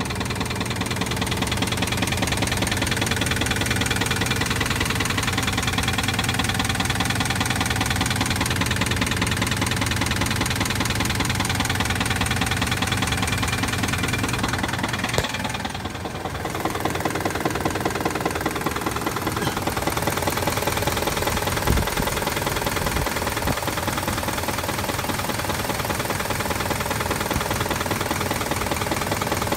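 2006 Jeep Grand Cherokee V8 engine running with a steady, rapid knock. The engine has logged a cylinder 7 misfire code. The level dips briefly about halfway through, and there is a single sharper knock a little after that.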